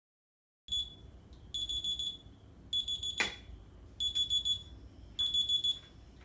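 Electronic wake-up alarm beeping: bursts of rapid high-pitched beeps repeating a little more than once a second, starting about a second in. A single sharp click sounds about halfway through.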